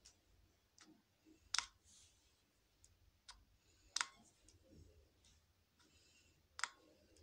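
Small plastic pump bottle of make-up clicking as it is handled and worked with the fingers: three sharp clicks a couple of seconds apart, with fainter ticks between.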